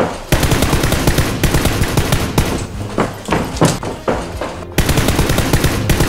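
Rapid automatic gunfire: a dense, unbroken stream of shots that starts just after the beginning, breaks off for a moment near the end, then carries on.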